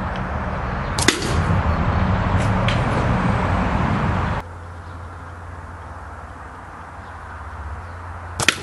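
Two sharp cracks of a .177 Brocock Contour air rifle firing pellets, about seven seconds apart. A low wind rumble on the microphone runs under the first shot and drops away abruptly about four seconds in.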